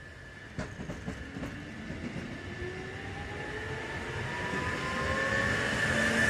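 Seibu Railway 2000-series electric commuter train pulling away and accelerating. Its traction motors whine, rising steadily in pitch and growing louder, with a few wheel clacks over rail joints in the first second or two.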